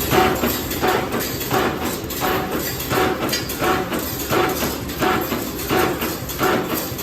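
CNC wire bending machine running through its cycle, cutting and bending steel wire into turf staples, with a regular mechanical clack about every 0.7 seconds.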